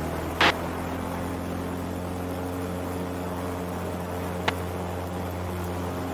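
Husky A1-B's Lycoming O-360 engine and propeller running steadily, heard inside the cockpit as the plane rolls on the runway. A short sharp knock about half a second in, the loudest thing here, and a faint click near four and a half seconds.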